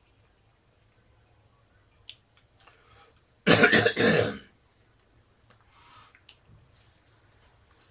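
A man clearing his throat and coughing: one harsh, loud burst of a few quick pulses lasting about a second, midway through. There are faint single clicks before and after it.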